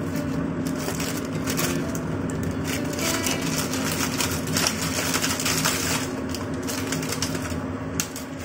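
Plastic packaging crinkling and rustling as a bag is handled and opened by hand, densest in the first six seconds, over a steady low hum.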